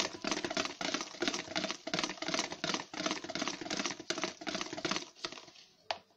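Wire whisk beating flour into cake batter in a plastic bowl: rapid, even clattering strokes of the metal wires against the bowl. The whisking stops about five seconds in, and a single sharp knock follows near the end.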